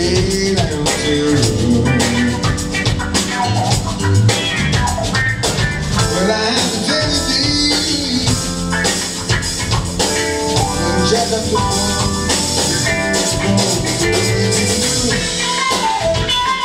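A live band playing a blues-rock song, with electric guitars, a drum kit and keyboard, and a voice singing over them.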